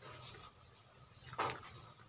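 Close-miked mouth sounds of eating by hand: soft chewing, with one short, loud smack about one and a half seconds in.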